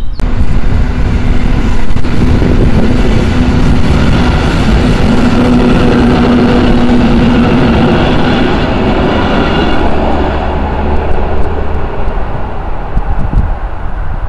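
Electric multiple unit passing close by: a loud, steady rumble of wheels on rails with a steady hum. It eases off after about ten seconds, with a few sharp clacks near the end.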